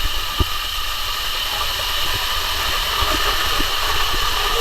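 Waterfall: falling water making a steady rushing hiss, with a few short low thumps.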